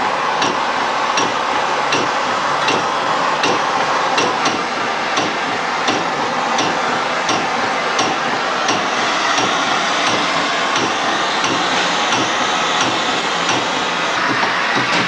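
Gas torch hissing steadily as it heats the hot end of a homemade Stirling engine, with a sharp click a little more often than once a second.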